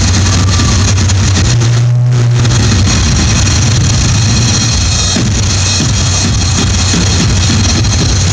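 Loud stage music with a strong bass line, accompanying a flag dance, with the upper range briefly thinning about two seconds in.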